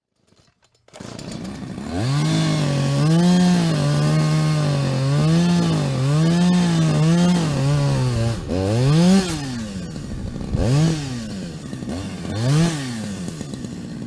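A small engine running with a wavering pitch for about six seconds, then revved up and let fall three times.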